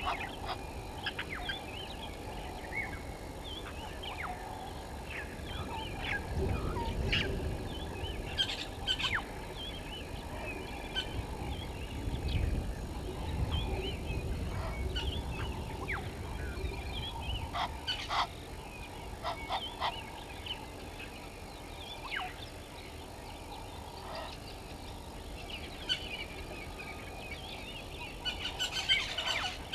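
Helmeted guineafowl and other birds calling: short, sharp calls scattered throughout, bunching into a quick run near the end, over a low rumble that swells twice.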